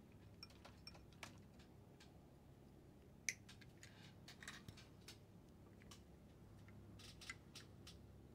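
Faint, scattered clicks and taps of small metal hand tools working on a transistor in an amplifier board, the sharpest about three seconds in, over a faint low hum.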